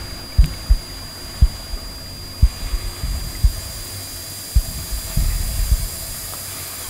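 Sound-design heartbeat: low thuds about once a second with weaker beats between, over a steady thin high tone. Near the end a hiss of water running from a bathroom tap comes in.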